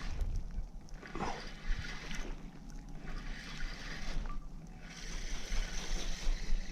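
Wind buffeting the microphone over the rush of river water, a low rumble under a hiss that swells and drops every second or two.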